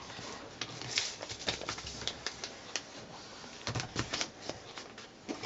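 Sheet of paper being folded and creased by hand: irregular crisp rustles and crackles.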